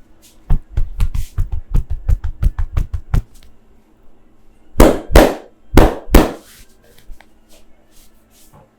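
Percussive massage strokes, the barber's hands striking the body: a quick run of about fifteen light strikes at around five a second, then four heavier slaps in two pairs.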